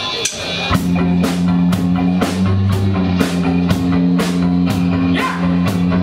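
Rock band playing: drum kit and electric guitars come in together just under a second in, with drum hits about twice a second over sustained bass notes.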